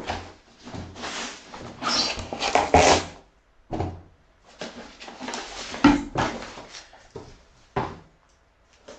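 A cardboard shipping box being torn open and handled by hand: irregular bursts of ripping, crackling and rustling cardboard and packing, busiest in the first three seconds, then sparser, with a short lull near the end.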